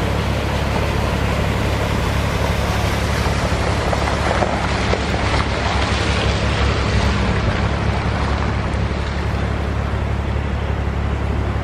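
Swollen stream in flash flood rushing steadily, a continuous roar of water with a low rumble under it, swelling a little midway.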